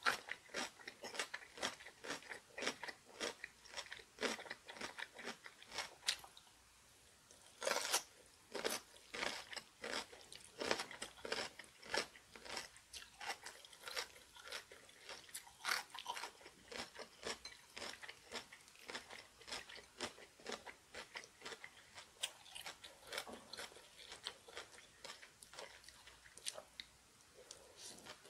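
Crisp crunching and chewing of kimchi, napa cabbage and young ponytail radish (chonggak), bite after bite in quick succession, with a short pause about six seconds in.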